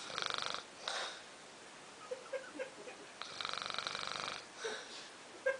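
Snoring: two long, fluttering snores about three seconds apart, with a shorter breath just after the first.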